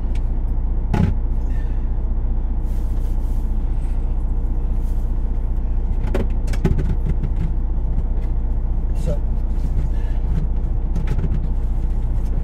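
Semi truck's diesel engine idling steadily, heard from inside the cab, with a few knocks and clatters of things being handled about a second in and again around six to seven seconds in.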